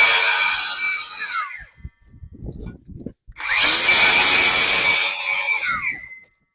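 Power saw cutting a vent hole into the roof, in two bursts. The first runs out about a second and a half in, and the second runs from about three seconds in to near the end. Each ends with the motor's pitch falling as it winds down, and a few low knocks fall between the cuts.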